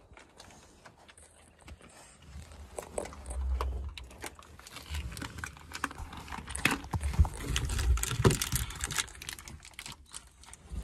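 Clicks, knocks and rustling from handling and moving about inside a small wooden hunting blind, with heavier low thumps of steps and bumps on its plank floor about three seconds in and again around eight seconds.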